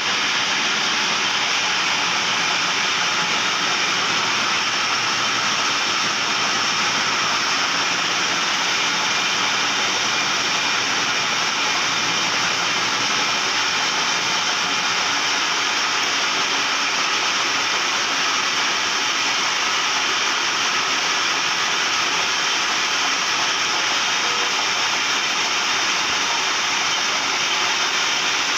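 Metal lathe running steadily, an even mechanical noise that does not change throughout.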